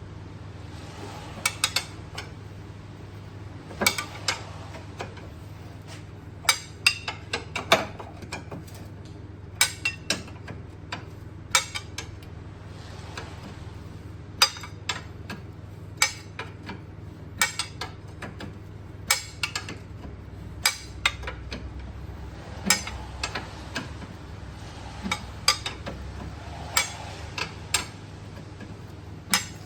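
Sharp metallic clinks and knocks of hand tools on metal, coming irregularly every second or two and sometimes in quick runs, over a steady low hum.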